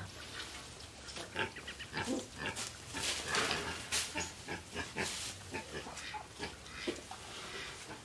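Excited pot-bellied pigs grunting in a run of short, irregular grunts, with hay rustling as it is put into their pen.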